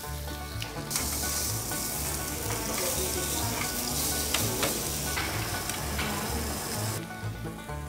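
Beef short ribs sizzling on the bars of a charcoal grill grate, the fat spitting in a dense hiss that drops away near the end.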